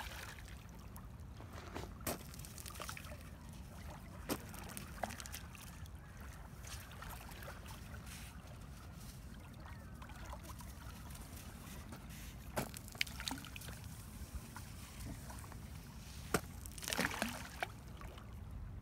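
Faint lapping of reservoir water at the shoreline over a steady low rumble, with a few scattered light crunches of steps on the gritty sand.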